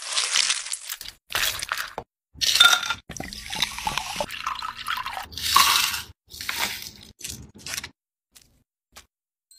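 Kiwi flesh crushed with a stainless-steel muddler in a glass, a string of wet crunches. Then liquid is poured into the glass for a few seconds, and near the end come a few light clicks of small candies dropping.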